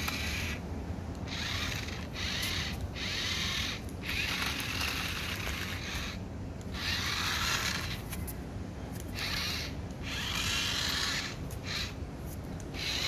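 Small electric motor and plastic gearbox of a transforming remote-control toy car whirring in repeated bursts of half a second to two seconds, with short pauses between them, as the car is driven in spurts.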